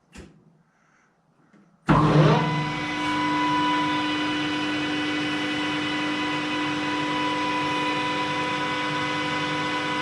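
Gosan metal-turning lathe's spindle, set to 840 rpm, switched on about two seconds in: it winds up quickly and then runs at a steady speed with a steady whine from the headstock.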